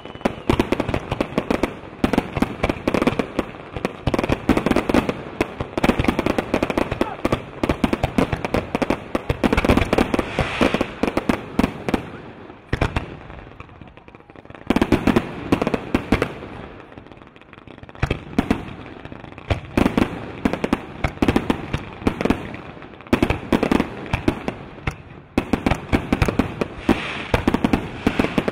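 Fireworks display: dense, rapid volleys of aerial shell bursts and crackling, easing off briefly about halfway through before picking up again.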